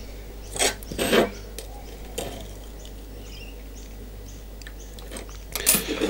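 Pieces of 6 mm steel plate clinking and scraping as they are moved and set down on a steel workbench: two knocks about a second in, another at two seconds, and a short run of clatter near the end.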